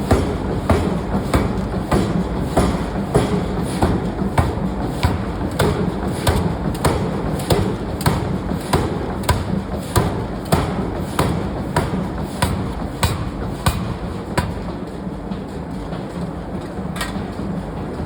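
Pneumatic forging power hammer striking steel in a steady rhythm, about one blow every 0.6 seconds, over a constant machine hum. In the last few seconds the blows thin out and grow weaker.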